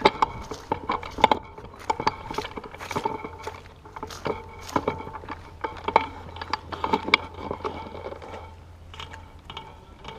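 Footsteps and the clatter of rifles and gear as shooters walk forward to a new firing line: a run of uneven clicks and knocks, several a second.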